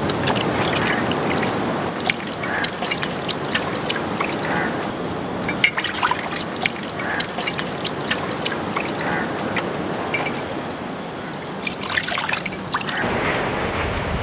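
Water trickling and dripping with many small clicks and splashes, from raw chicken pieces being washed and handled in water. The sound changes about 13 seconds in.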